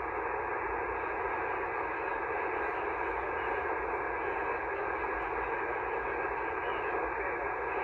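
HF amateur radio receiver giving a steady hiss of band noise through its narrow single-sideband audio passband, with no station coming through.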